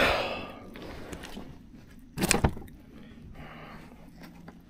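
Handling noise on a plastic fishing kayak: a short rush of noise at the start, then a loud clattering knock about two seconds in, as gear knocks against the hull.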